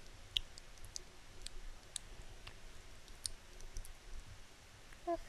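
Faint, irregular small wet clicks and smacks from the mouth as fingers work a waxy troche up between cheek and gum, picked up close by a headset mic. A brief hum from the voice comes near the end.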